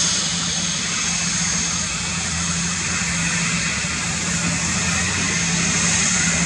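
Airbus A320 jet engines running steadily as the airliner taxis: an even rush with a thin, high, steady whine on top and a low hum beneath.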